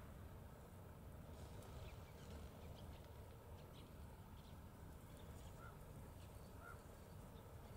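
Near silence: faint outdoor ambience with a steady low rumble and scattered faint ticks, and two faint short chirps in the second half.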